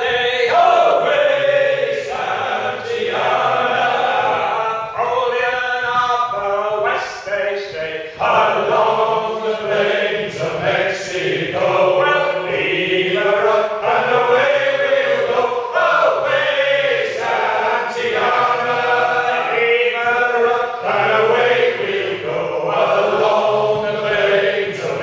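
A group of men singing a sea shanty together without instruments, phrase after phrase with brief breaths between lines.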